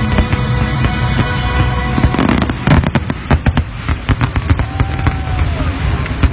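Fireworks going off in rapid succession: a dense run of crackling pops and bangs, thickest from about two seconds in.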